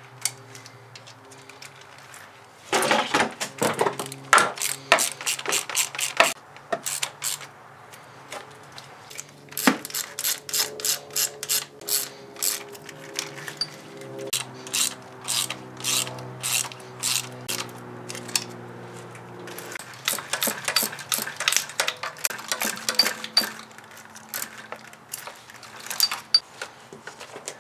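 Hand ratchet clicking in quick runs as cylinder head bolts are spun down and snugged by hand, with short pauses between runs.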